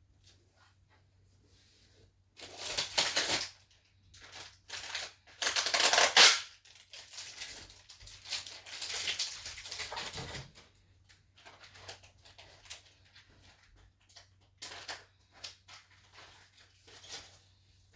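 Packaging being handled: crinkling plastic and rustling material in several irregular bursts, the loudest about six seconds in, then scattered light clicks and rustles.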